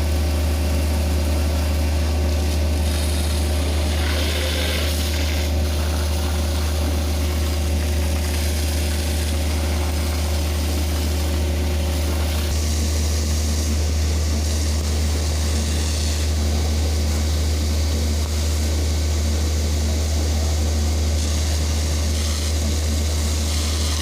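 Large engine idling steadily with a deep, even drone, while a higher hiss comes and goes over it.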